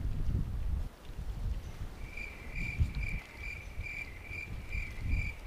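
Cricket chirping: a steady, evenly pulsed high chirp a little over twice a second, starting about two seconds in. Before it, a low rumble of wind on the microphone.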